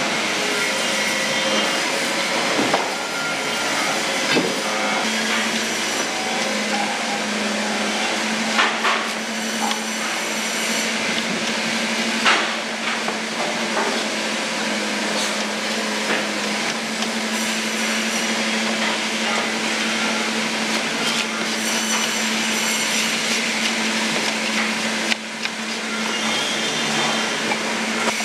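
Factory machinery in a frozen-tuna processing plant, running with a steady hum and a hiss, with occasional sharp knocks and clatter.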